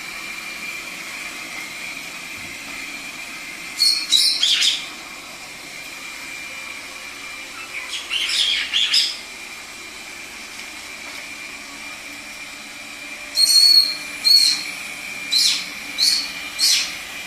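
Robot vacuum cleaner running with a steady hum and a thin high whine, while a caique parrot gives shrill, harsh calls in three bouts: about four seconds in, about eight seconds in, and a string of short calls near the end.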